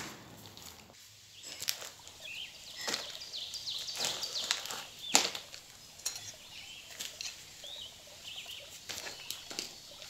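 Small birds chirping in short, repeated calls, with a few sharp knocks and rustles from a taped cardboard box being handled, the loudest about five seconds in.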